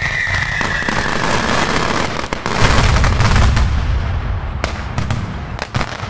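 Fireworks going off: a fan of comets fired from ground level, with continuous loud crackle and a deep rumble. A high tone falls slowly over the first two seconds. Over the last second and a half comes a string of sharp bangs.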